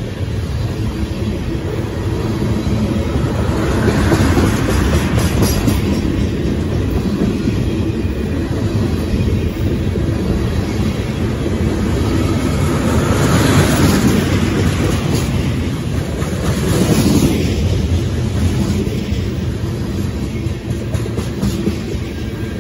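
Tank cars of a CSX ethanol unit train rolling past close by: a continuous rumble and clatter of steel wheels on the rails, swelling louder a few times as cars go by.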